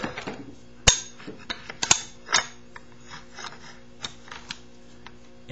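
Scattered clicks and knocks of an ICS silencer being fitted onto an airsoft M4's flash hider, the sharpest click about a second in and two more around two seconds in.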